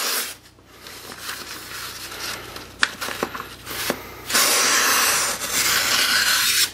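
Buck 110 knife blade slicing through a sheet of printer paper in a sharpness test: a papery rustling hiss with a few small clicks midway, louder and steady for a couple of seconds near the end. The blade cuts the paper cleanly, the sign of a very sharp edge.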